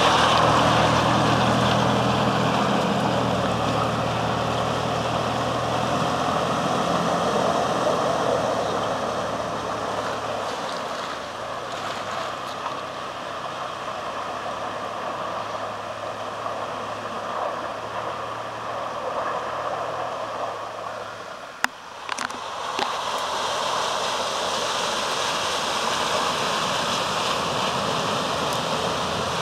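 Toyota Land Cruiser Prado's engine running as it drives off into a river crossing, fading over the first ten seconds or so, over the steady rush of river water. After a sudden break about three-quarters of the way in, water rushing and splashing as the Prado wades through the river.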